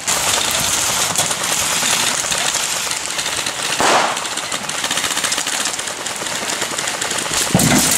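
Airsoft electric guns (AEGs) firing on full auto: a fast rattling run of shots, with a louder patch about halfway through and a low knock near the end.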